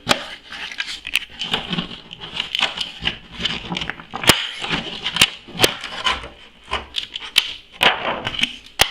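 Packaging being handled while a box is unpacked: irregular crackling and rustling with sharp snaps and clicks, a few louder ones around the middle and near the end.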